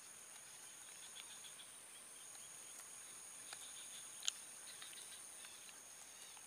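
Faint, steady high-pitched insect drone made of two continuous tones, with scattered faint chirps and a single sharp click about four seconds in.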